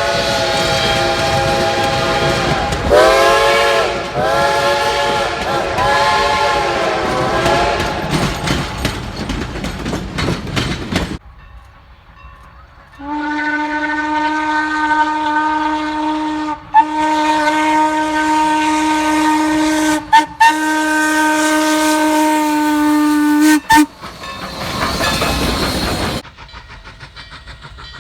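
Two steam locomotive whistles in turn. First a chime whistle sounds a chord, then a run of short blasts that swoop in pitch at the start of each, as the whistle is quilled, before fading into noise. After a short gap, a lower whistle blows one long blast of about ten seconds, broken twice briefly, and is followed by a couple of seconds of hissing noise.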